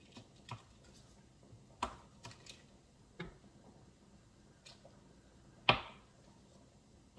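Scattered light taps and knocks of a kitchen knife cutting cold butter into cubes against a counter-top cutting surface, with one sharper knock near the end.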